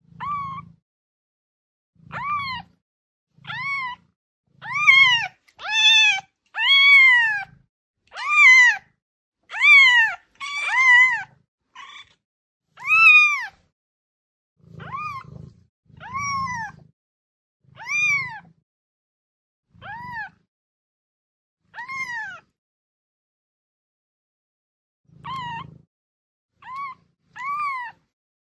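A kitten meowing again and again, about twenty high-pitched meows, each rising and then falling in pitch. The meows come about one a second with short silences between them, are loudest midway, and stop for a few seconds near the end.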